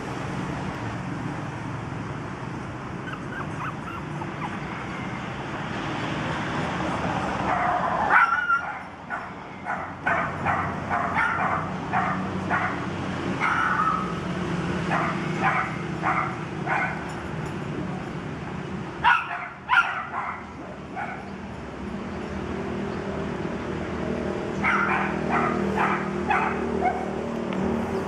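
Young toy poodle puppies yipping: runs of short, high-pitched barks in three bouts, the first starting about a third of the way in, another near the middle and one near the end. Under them runs a steady low hum.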